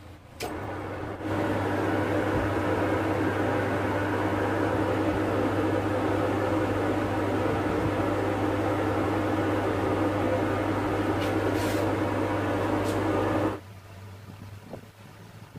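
Manual lathe running: a click about half a second in, then the motor and spindle drive hum steadily for about twelve seconds and stop abruptly near the end.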